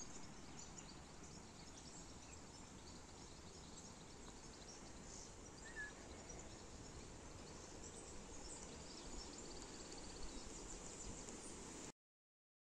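Faint woodland ambience: small birds chirping quietly over a low steady background hush, with one short, clearer chirp about six seconds in. The sound cuts off to complete silence about a second before the end.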